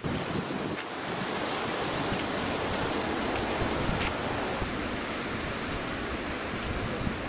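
Wind rushing and buffeting against the microphone: a steady, even rush with restless low rumbling.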